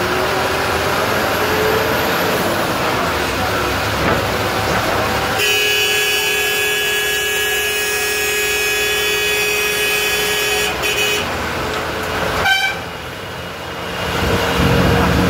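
KSRTC bus's diesel engine and road noise, heard from inside the bus, with the horn blown and held for about six seconds while it overtakes a truck. Near the end, a sharp click and a brief drop in level before the engine noise returns.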